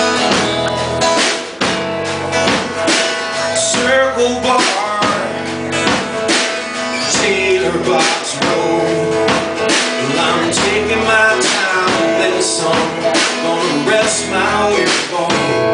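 Instrumental intro of a country-rock song: guitars over a steady drum beat.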